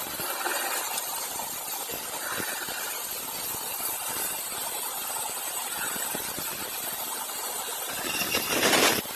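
Woodworking machinery running with a steady hiss, and a louder, rougher burst of about a second near the end.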